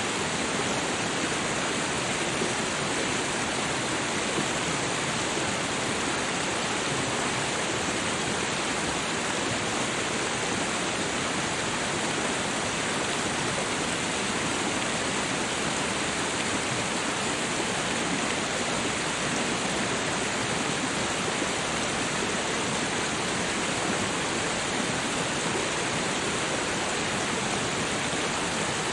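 Steady rushing water, an even unbroken hiss with no separate drops or splashes standing out.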